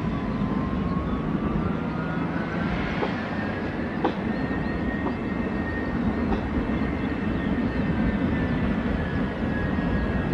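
Jet aircraft turbofan engines running with a steady rumble, and a thin whine that rises in pitch over the first few seconds and then holds steady.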